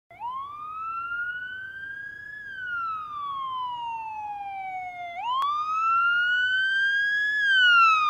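Ambulance siren in a slow wail, its pitch rising and falling twice over about five seconds each time. It grows louder as the ambulance approaches.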